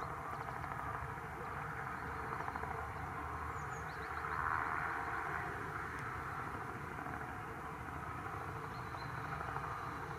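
Distant jet aircraft engine noise: a steady drone with a faint whine, swelling slightly about halfway through.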